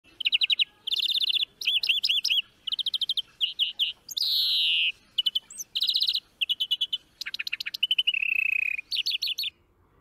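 A songbird singing a long song made of quick trills, each trill a run of one repeated note and each trill different from the last. About four seconds in there is a buzzy falling note, and near the end a long steady whistle; the song stops shortly before the end.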